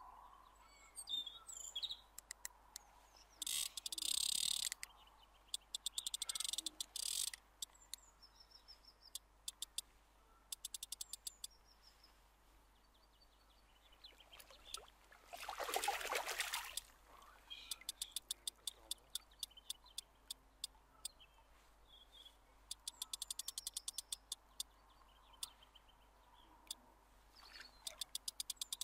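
Spinning reel's drag clicking in rapid runs as a hooked carp pulls line off it, with brief faint bird chirps. About halfway through there is a single louder rush of noise lasting about a second.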